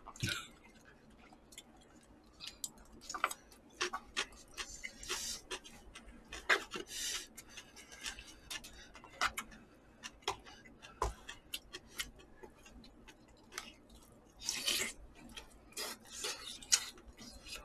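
Quiet eating sounds: chopsticks and a spoon clicking and scraping against paper cups and a cardboard takeout box, with chewing, in scattered ticks and short noisy bursts.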